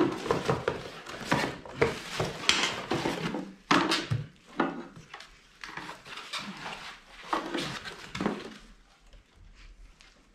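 Irregular knocks, clicks and rustles of the belt grinder's parts and packaging being handled, dying away about eight and a half seconds in.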